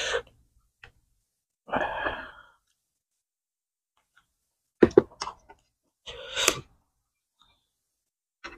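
Close-miked eating sounds from a person at a meal: a breathy sigh about two seconds in, a few short mouth clicks around five seconds, and a sharp breath near the end, with silence in between.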